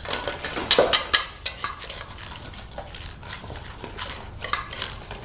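Metal spoon clinking and scraping against a stainless steel bowl as food is scooped out. The clinks come in quick runs, loudest about a second in and again about four and a half seconds in.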